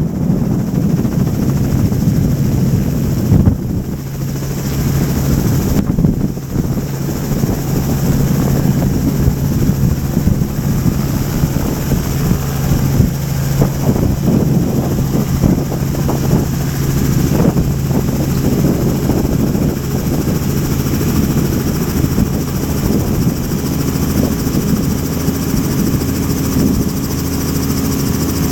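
Robinson R44 helicopter landing and then running on the pad: steady engine and rotor noise with a steady low drone. A higher tone joins near the end.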